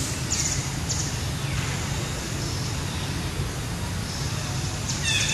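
Outdoor ambience: a steady low rumble with several short, high bird chirps that fall in pitch. The chirps come about half a second in, twice more around the one-second mark, and again near the end.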